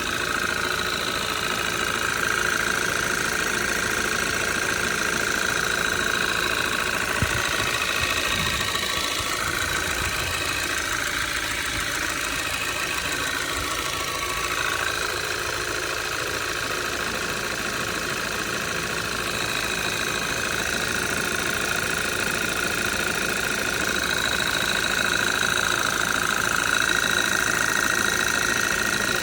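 Audi 2.0 TFSI gen2 turbocharged four-cylinder idling after a cold start, with a knock from inside the engine. The owner likens it to a worn piston pin, though he is not sure.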